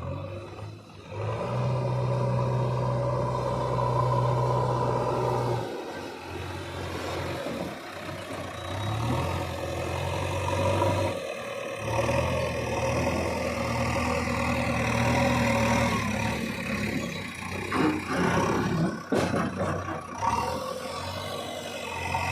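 Diesel engine of a JCB 3DX backhoe loader running under working load, its note rising and falling as the machine digs and loads, with a few brief breaks.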